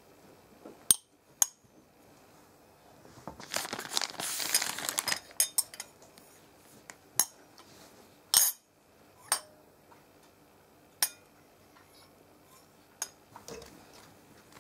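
A metal spoon clinking twice on a ceramic plate, then a few seconds of plastic crinkling and rustling, followed by several separate sharp clicks and taps as stiff plastic jelly tubes and the spoon are handled.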